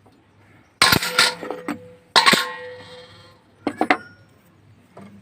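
Metal tools clanking against metal engine parts: two clusters of loud sharp strikes, one ringing on with a clear tone, then lighter clinks near the end.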